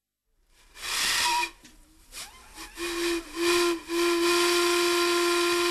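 Steam whistle on a boiler blown by hand with its lever valve: a burst of hissing steam about a second in, a few short broken toots, then from about four seconds in one long steady whistle note.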